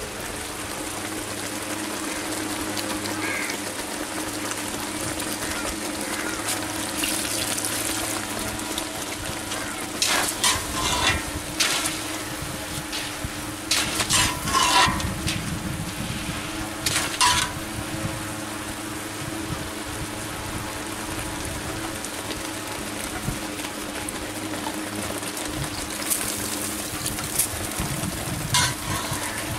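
Boondi (tiny gram-flour batter drops) sizzling steadily as they fry in a wide iron kadai of hot oil, with a few sharp metal scrapes and taps of the long perforated ladle against the pan now and then.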